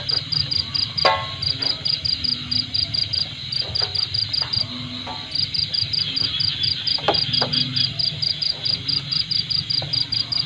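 An insect chirping in a rapid, regular pulsing trill that stops briefly a little before halfway and then carries on. A short, louder sound cuts in about a second in.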